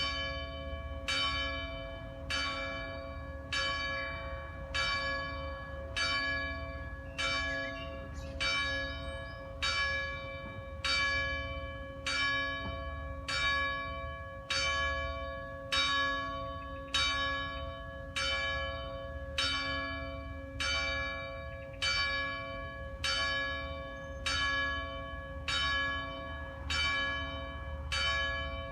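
A church bell in Italy tolling at an even pace of about one stroke a second. Every stroke is at the same pitch and rings on into the next. The tolling begins right at the start.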